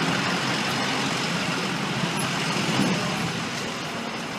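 Steady rumble of idling trucks and city street traffic, easing off a little near the end.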